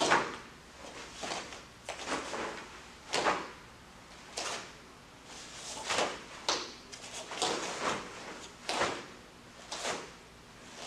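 Taekwondo uniform sleeves and jacket snapping, and bare feet on the training mat, as strikes and blocks are thrown: a string of sharp swishes, about one a second.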